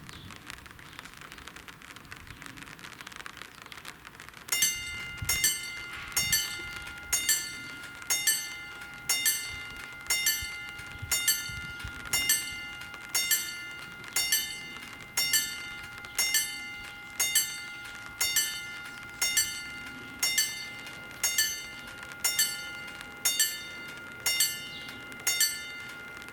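Level crossing warning bell starting about four seconds in and striking steadily about once a second, each stroke ringing out before the next, over a steady hiss: the crossing's signal that a train is approaching.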